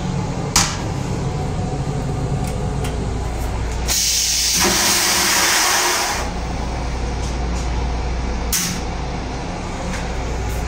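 Metro-North M8 railcar toilet flushing: a click about half a second in, then a rushing hiss of spray lasting about two seconds from around four seconds in, with a second click later, over the steady low rumble of the railcar.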